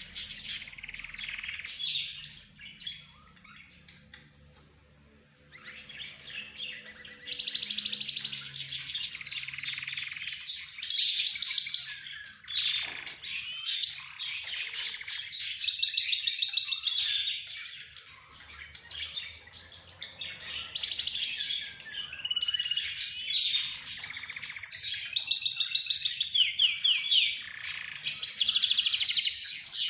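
Mixed cage birds chirping and trilling together: budgerigars, lovebirds, zebra finches and a canary. The calling comes in busy waves of quick chirps and fast trills, with brief lulls.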